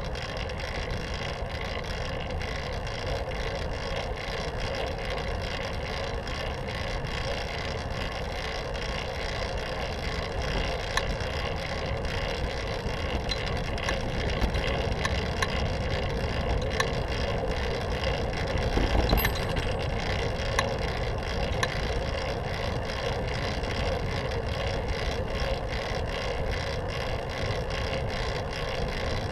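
Riding noise from a fixed-gear bicycle on a paved path: a steady rolling sound from the tyres and drivetrain, with frequent small rattles and clicks. A heavier bump comes about two-thirds of the way through.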